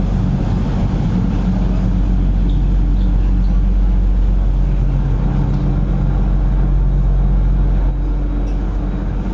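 A small passenger ferry's engine running with a steady low drone, heard from inside the cabin. Its note shifts slightly about two seconds in and again near the end.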